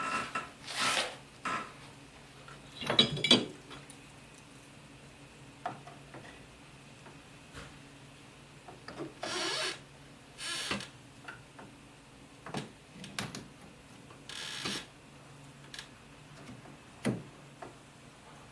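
Irregular clanks, clicks and short scrapes of hand tools and metal parts being handled during work on a UTV's front axle and suspension. The loudest knocks come about three seconds in.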